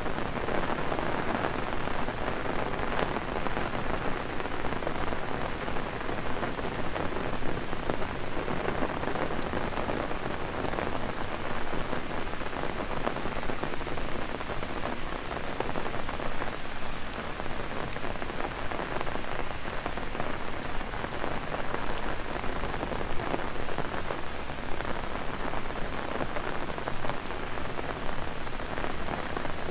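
Heavy rain falling on an umbrella held overhead: a dense, steady hiss of drops striking the canopy.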